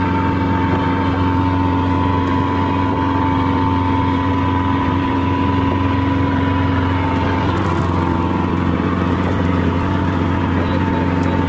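Fishing trawler's engine running steadily: a constant low drone with a steady hum above it, unchanging in pitch.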